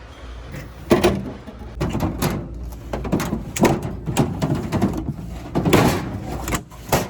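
Plastic storage bins being handled, with a run of knocks and clatters of hard plastic as they are moved and opened.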